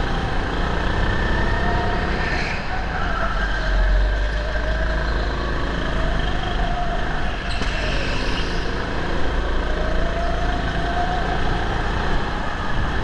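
Go-kart running at speed, heard from on board. Its motor's pitch rises and falls several times as it speeds up and slows through the corners, over a steady low rumble.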